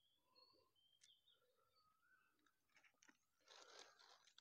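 Near silence: faint outdoor quiet with a few faint high chirps and a soft rustle near the end.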